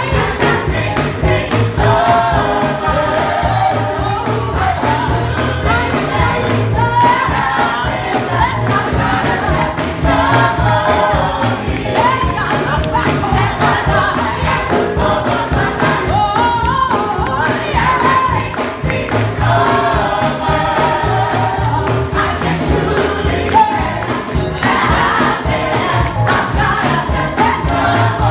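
Gospel choir singing an upbeat song in full voice, with hand-clapping in time.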